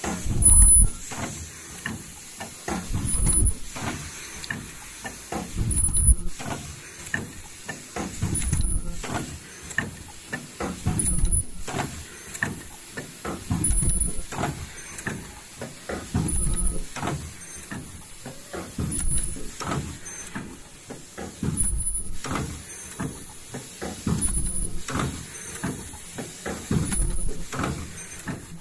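Richpeace automatic KN95 mask production line running: pneumatic actuators clunking and hissing in a repeating cycle about every two seconds, with a short high-pitched tone on each cycle.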